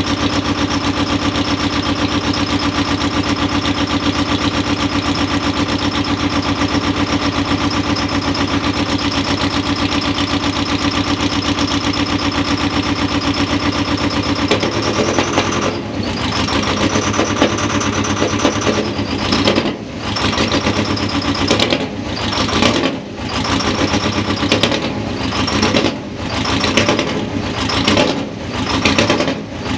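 Detroit Diesel 8V71 naturally aspirated two-stroke V8 diesel running steadily on a cold start, then from about halfway through surging and dipping roughly once a second. It is below its set idle speed, so the governor is calling for nearly full throttle, which gives the odd sounds.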